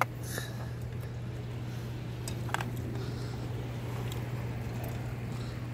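Steady low hum with a few faint clicks of tableware, near the start and about two and a half seconds in.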